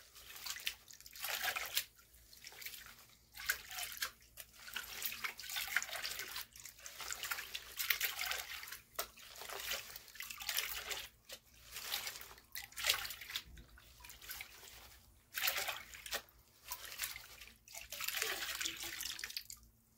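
Water sloshing and splashing in repeated surges, about one a second, as a plastic gold pan of sandy dirt is swirled and dipped in a tub of water. This is the panning-down stage, washing the light material out over the rim.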